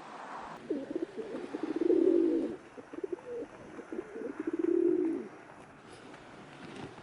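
Domestic pigeon cooing: two coo phrases, each a run of quick pulses swelling into a longer, louder coo.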